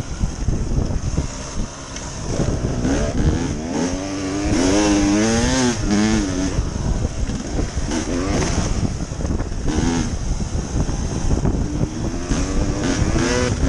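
Two-stroke engine of a 2014 Husqvarna TE300 dirt bike being ridden, its pitch rising and falling as the throttle is worked, revving hardest about four to six seconds in and again near the end.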